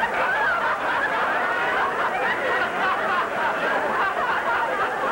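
Studio audience laughing, many voices overlapping at an even level.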